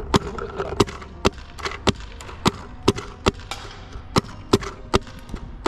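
A paintball-style gun fired shot after shot, about a dozen sharp pops at roughly two a second with uneven spacing, as the shooter tries to break a window pane.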